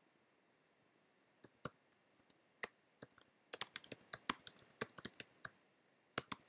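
Typing on a computer keyboard: a few scattered keystrokes, then a quicker run of typing from about three and a half seconds in.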